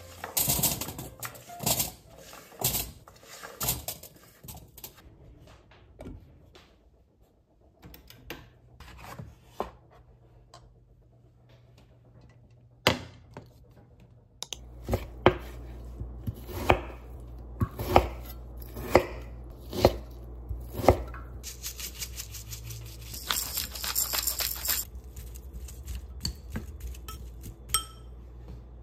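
Kitchen prep sounds: sharp knocks of a knife and utensils on a wooden cutting board, with the clatter of cookware. From about halfway a low steady hum runs underneath, with a run of single knocks about a second apart.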